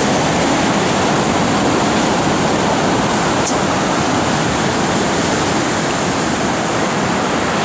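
Storm waves on the Black Sea breaking and washing against the shore: a steady, loud rush of churning surf.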